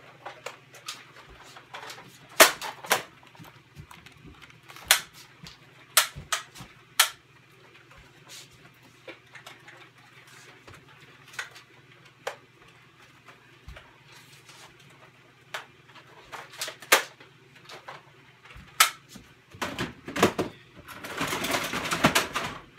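Irregular sharp clicks and knocks, about a dozen scattered through, with a stretch of rustling in the last few seconds, as things are handled in a small room.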